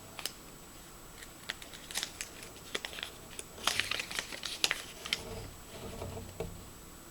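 Handling of a Kinder Surprise egg's plastic capsule and toy wrapping: crinkling and sharp plastic clicks, scattered at first and thickest about four seconds in, followed by a soft low rubbing.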